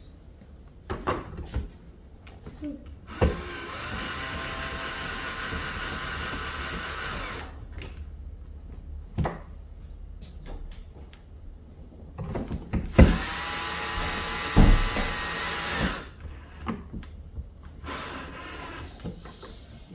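Cordless drill/driver run twice, about four seconds each time, its motor whine rising as it spins up, driving screws to close up the electrical box. Between the runs come scattered clicks and knocks of handling.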